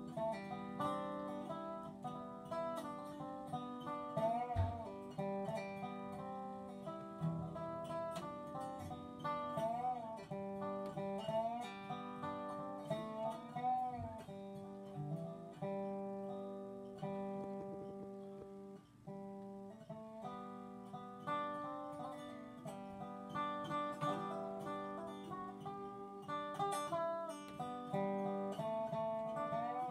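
Resonator guitar played flat on the lap with a slide: a melody of picked notes that ring on, with frequent sliding glides between pitches.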